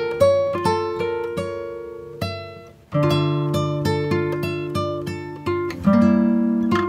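Background music: an acoustic guitar playing plucked notes and chords, with a short pause about three seconds in.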